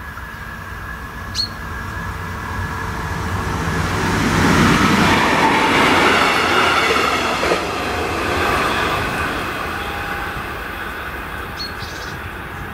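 A freight train hauled by a diesel locomotive passes over a level crossing, the locomotive and tank wagons rumbling by on the rails. The sound swells for the first few seconds, is loudest in the middle, and fades away as the train leaves.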